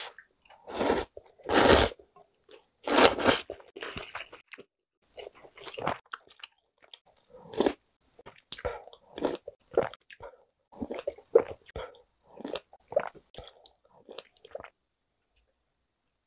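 Close-miked eating sounds of chewy jjolmyeon noodles in spicy broth: three loud slurps in the first few seconds, then steady chewing that stops near the end.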